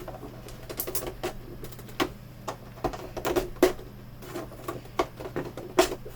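Irregular plastic clicks and taps from plastic prying tools working between a monitor's bezel and rear casing, several of them sharp, over a steady low hum.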